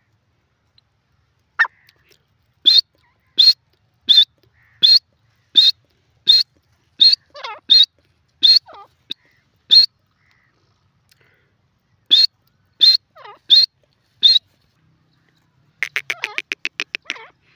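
Grey francolin calling: loud, sharp, high notes repeated about every 0.7 s, in two runs with a pause of about two seconds between. Near the end comes a fast rattling run of rapid notes lasting under two seconds.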